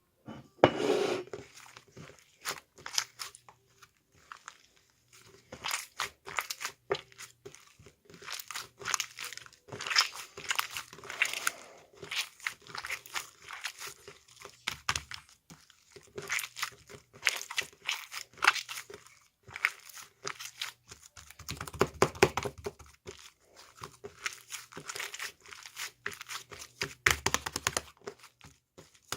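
Hands working a batch of slime, giving irregular crackling, crinkling and squishing sounds in quick clusters with short pauses between.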